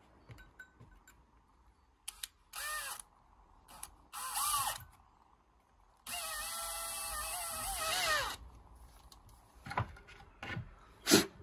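Handheld drill boring a hinge-cup hole in plywood through a clamped jig. It runs in three bursts: two short ones, then a longer run of about two seconds, its motor whine dipping and rising in pitch as the bit cuts. Near the end come a few sharp clacks, the loudest sound here, as the jig's toggle clamp is released.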